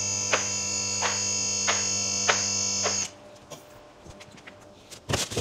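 Electric motor of a vehicle lift raising a car: a steady hum and whine with a click about every two-thirds of a second. It cuts off about three seconds in, and a few sharp clicks and knocks follow near the end.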